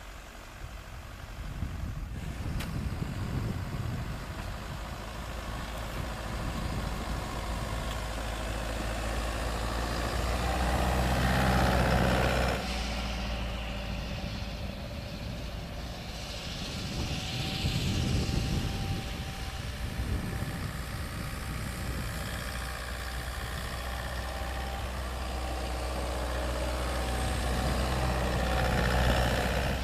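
Toyota Land Cruiser SUV's engine running under load as it ploughs through deep snow. The engine swells louder several times, and the sound changes abruptly about twelve seconds in.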